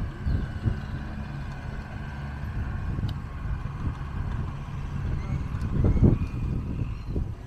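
Rumble and rattle of a rental bicycle with a wire front basket ridden over paving stones, with wind buffeting the handlebar-mounted microphone. The rumble swells for a moment about six seconds in.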